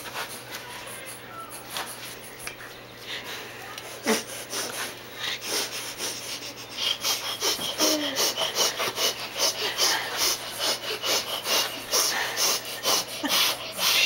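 Excited baby's huffing, hissing breaths, in quick rhythmic puffs of several a second; they grow louder and faster about halfway through.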